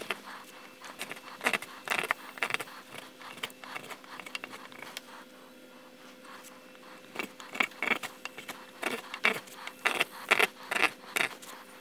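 Spokeshave shaving a dampened timber beam end, working against the grain in quick, short scraping strokes about three a second. The strokes stop for a few seconds in the middle while the blade is adjusted, then resume.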